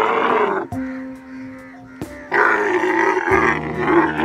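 Camel grunting: two long, rough calls, the first ending under a second in and the second starting a little past halfway and carrying on. Background music with steady held notes fills the gap between them.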